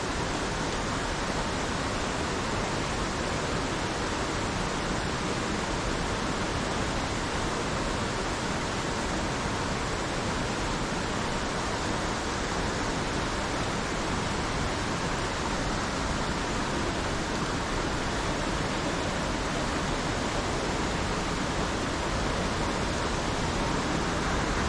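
Steady rush of water from a rocky mountain creek spilling over boulders, an even hiss with no breaks.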